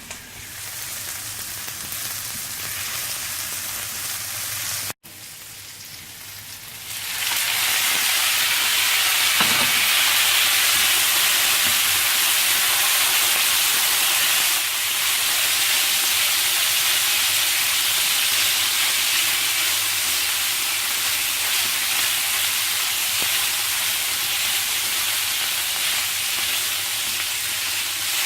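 Minced pork stir-fry sizzling in hot oil in a skillet. The sound cuts out for an instant about five seconds in. It then grows much louder about seven seconds in and stays at that level.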